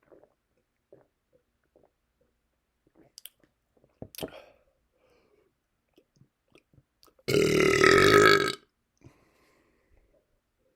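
One long, loud burp of about a second, brought up by carbonated seltzer, about seven seconds in. Before it come a few faint clicks and one sharper click.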